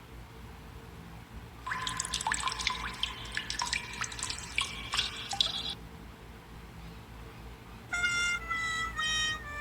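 Sound effects: a run of many quick, high plinking water-drop sounds lasting about four seconds. Near the end comes a buzzy horn-like tone that steps down in pitch a few times.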